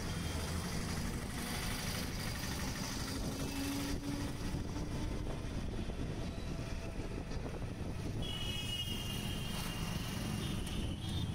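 City street traffic heard from a moving electric rickshaw: steady road and wind rumble, with motorcycles and cars passing close by.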